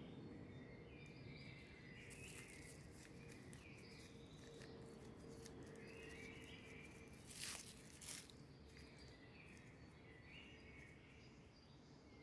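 Near silence: faint background with light high chirps and a steady low hum, and two soft clicks about seven and a half seconds in.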